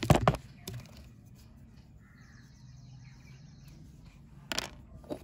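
A dry, crumbly chalk-like bar being snapped by hand: a cluster of sharp cracks and crunches right at the start, a single crack about four and a half seconds in, and a smaller click just before the end.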